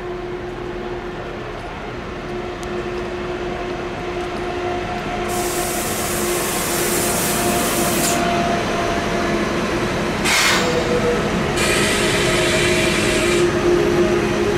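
A train running on the track, growing gradually louder, with a steady hum and three stretches of hiss.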